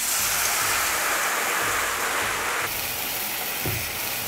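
Water poured from a copper jug into a hot aluminium pan of ghee-fried moong dal: a loud rushing hiss that starts suddenly. About two and a half seconds in, the pour stops and a quieter hiss from the water on the hot pan carries on.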